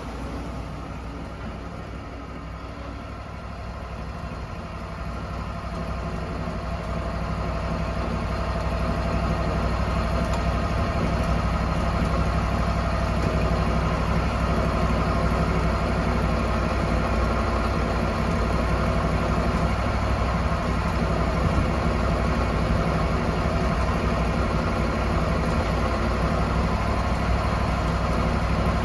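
An engine running steadily, growing louder over the first eight seconds or so and then holding an even level.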